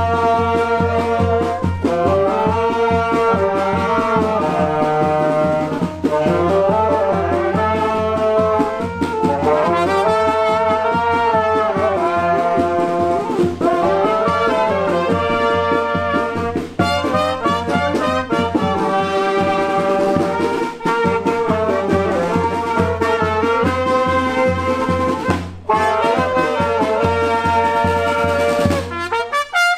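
A charanga street band of brass and saxophones playing a lively tune over a steady beat, ending just before the close.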